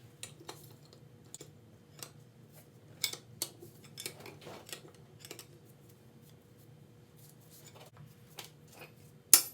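Metal hand tools clicking and clinking against a Yamaha YZ125 two-stroke engine at the rotor nut: scattered light clicks, then two sharp, louder clanks near the end.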